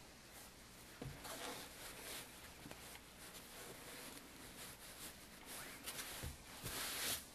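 Faint rustling and rubbing of a small piece of fabric being handled, laid down and smoothed flat by hand on an ironing board cover, with a couple of light bumps.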